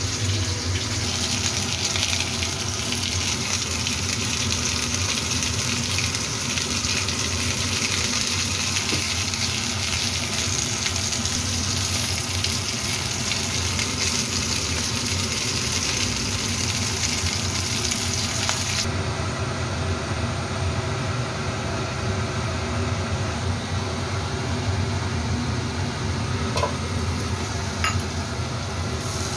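Food frying in hot oil in a non-stick wok: a steady sizzling hiss that drops suddenly to a quieter, softer sizzle about two-thirds of the way through, with a couple of light ticks near the end.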